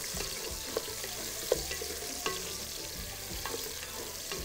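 Carrots frying in oil in a metal pot, sizzling steadily, while a wooden spoon stirs them and knocks against the pot every second or so.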